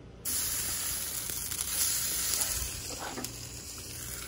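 Salmon fillets sizzling on hot grill grates: a steady hiss that starts suddenly as the fish is laid down.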